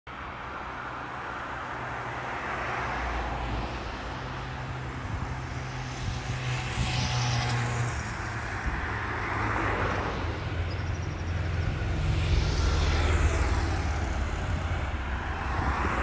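Road traffic: several cars pass one after another, each rising and fading, over a steady low engine hum. The loudest pass comes near the end.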